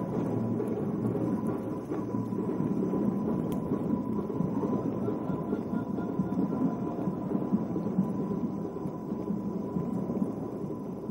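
Steady low rumble of a Ninebot One E+ electric unicycle rolling over paving, with a thin, steady high whine above it.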